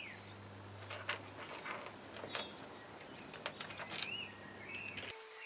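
Light clicks and taps of small metal engine parts being handled, with faint bird chirps in the background. A low hum stops abruptly about five seconds in and a faint steady tone takes its place.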